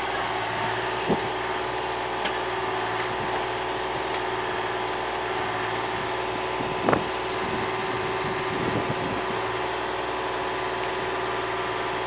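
Yanmar YB251 mini excavator's diesel engine running steadily while the arm and bucket dig into gravel, with a sharp knock about seven seconds in and a few lighter clunks.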